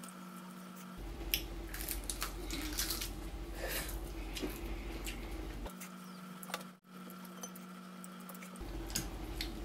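Close-up eating sounds: wet chewing and lip smacks, with scattered short crackles and clicks as crispy roast chicken is pulled apart by hand.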